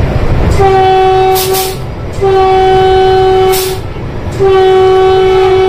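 Vande Bharat Express train horn sounding three long, steady blasts of a bit under two seconds each, the first about half a second in, over the low rumble of the train running.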